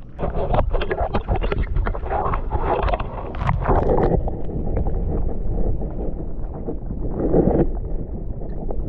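Water splashing and sloshing as a hand and camera dip into the pond, then, about four seconds in, the sound turns dull and muffled as the microphone goes underwater.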